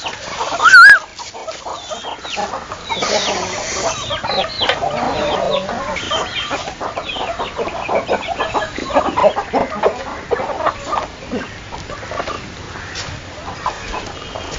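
A flock of chickens clucking busily while feeding on scattered feed. One loud, short rising call comes about a second in.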